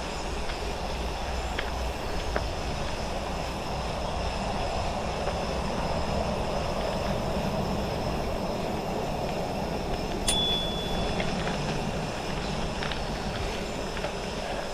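Gravel bike on Goodyear Connector gravel tyres rolling along, giving a steady rolling rumble with wind noise. About ten seconds in there is a sharp click and a short high tone.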